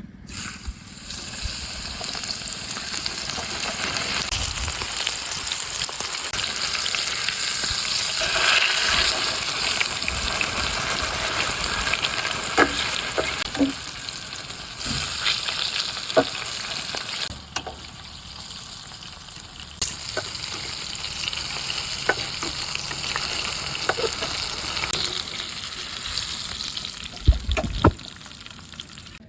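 Chicken sizzling as it fries in hot oil, with scattered clicks and knocks of a utensil against the pan. The sizzle briefly drops a little past the middle.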